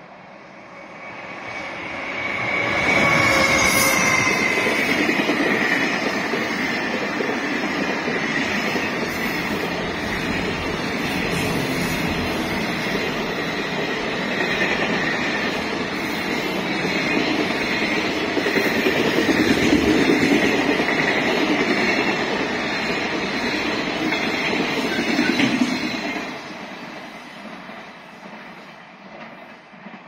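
Freight train of container wagons hauled by an EF210 electric locomotive passing close by. The wheels rumble on the rails under a steady high tone. The sound builds over the first few seconds as the locomotive arrives and fades from about 26 seconds in as the end of the train goes away.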